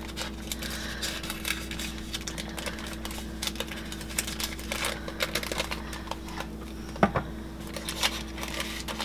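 Parchment paper crinkling and crackling in irregular small clicks as it is lifted and folded around piles of ground spice, with one sharper crackle about seven seconds in. A faint steady hum runs underneath.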